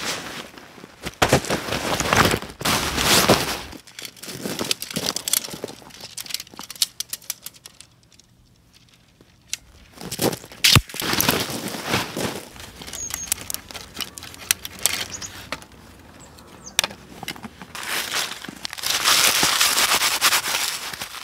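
Close-up handling sounds while setting up camp: nylon tent stuff sack and pack gear rustling, boots crunching on gravel, and a single sharp crack. Near the end comes a loud stretch of dry leaves crunching and crumpling in leather-gloved hands.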